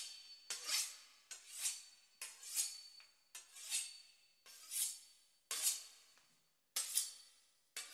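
A knife sawing back and forth through the crisp puff-pastry crust of a beef Wellington, a rasping, crackling stroke about once a second.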